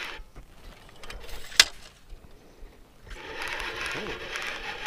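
Fishing reel being cranked while a hooked peacock bass is played up to the boat, with a single sharp click about a second and a half in and steady winding from about three seconds in.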